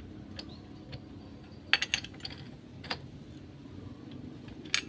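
Metal hand tools clicking against a motorcycle clutch: a wrench and a clutch-holding tool on the Suzuki Shogun SP125's clutch hub give a quick cluster of sharp clinks about two seconds in, another near three seconds and one more near the end, over a faint low hum.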